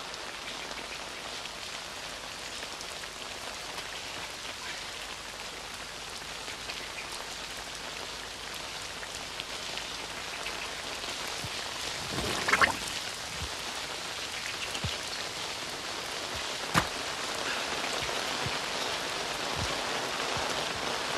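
Steady rain falling, an even hiss, with a brief louder noise a little past halfway and a sharp click a few seconds later.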